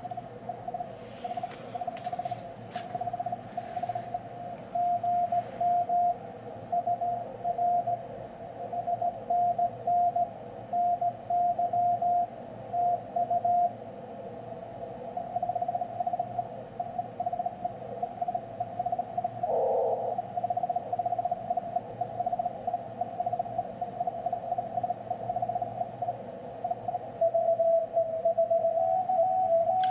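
Morse code (CW) signal received on a Yaesu FTDX10 HF transceiver: a steady pitched tone keyed on and off in dots and dashes over band hiss. The operator reckons the sender is going at about 18 words a minute. A few clicks come in the first seconds, and near the end a second, slightly lower-pitched signal is heard.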